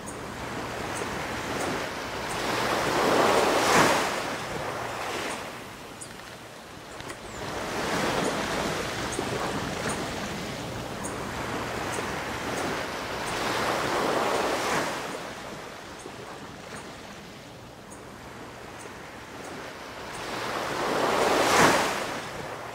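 Small waves breaking and washing up onto a sandy beach. The surf swells and falls back every five or six seconds, and the loudest break comes near the end.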